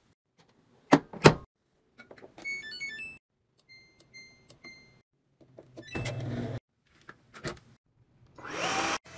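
A front-load washing machine: its door shuts with two knocks, then a short electronic tune plays and three beeps sound as the cycle dial is turned. Near the end a cordless stick vacuum switches on, its motor whine rising as it spins up.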